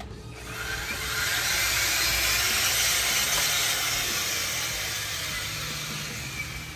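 Ryobi cordless earth auger running, its bit spinning in hard ground as it is drawn up out of the hole. The motor noise comes up about half a second in and tapers off near the end.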